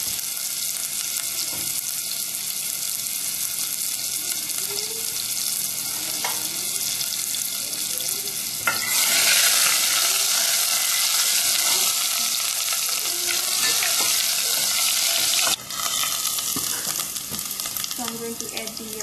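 Hot oil sizzling in a stainless steel saucepan as mustard seeds, cumin, ginger and garlic fry for a sambar tempering (tadka), stirred with a metal ladle. The sizzle grows louder about halfway through and drops suddenly a few seconds before the end.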